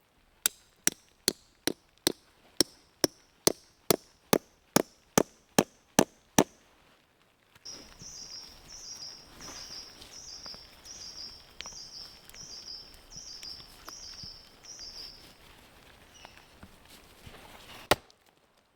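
About fourteen sharp, evenly spaced strikes of a tool on wood, a little over two a second and getting louder, then stopping. A bird then repeats a short, high, slightly falling chirp about ten times, and one more sharp knock on wood comes near the end.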